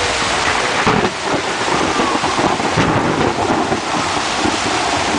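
Heavy rain pounding steadily on a tent, heard from inside it.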